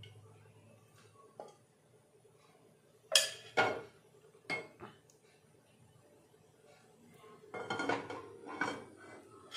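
Metal pots and kitchen utensils clinking and knocking: a few separate sharp knocks, then a denser run of clatter with some ringing near the end.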